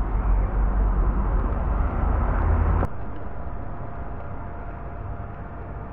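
Wind buffeting the microphone over outdoor street noise, a loud fluctuating low rumble that cuts off abruptly with a click a little before halfway. After it comes a quieter indoor room tone with a faint steady hum.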